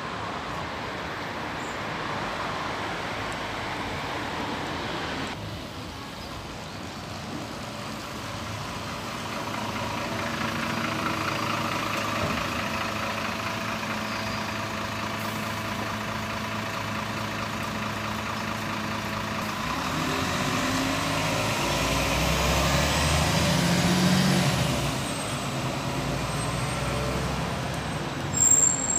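Articulated Irisbus city bus with its diesel engine running steadily at a stop, then pulling away, its engine note swelling and a high whine gliding up and down, amid passing traffic. A few sharp loud sounds come near the end.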